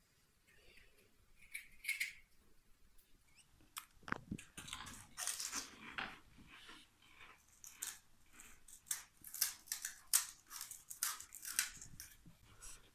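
Crisp golgappa (pani puri) shells cracking and being chewed, with irregular crunches, scattered at first and coming thick and fast from about four seconds in.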